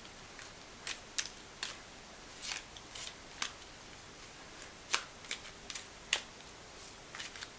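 Tarot cards being shuffled and handled: a string of short, irregular clicks and flicks of card against card.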